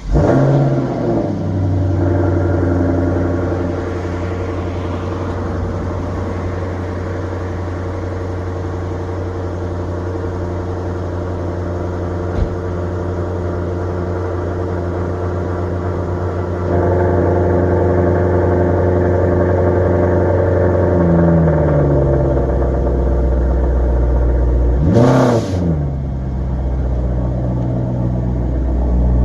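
Maserati GranTurismo Sport's 4.7-litre V8 starting up: it flares high at the catch and settles into a steady fast idle. Later the idle drops lower, and one quick blip of the throttle follows near the end.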